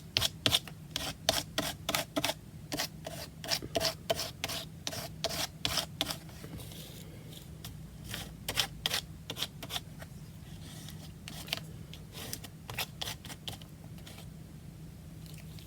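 A brush working gesso onto a paper tag: quick, repeated scrubbing strokes, about two to three a second for the first six seconds, then sparser.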